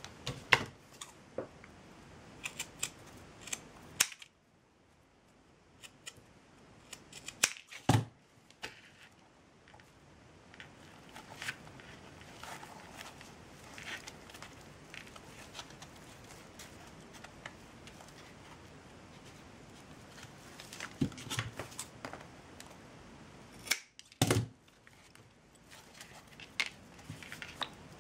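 Scissors snipping jute twine in short, scattered cuts, with small handling clicks and a few louder sharp knocks.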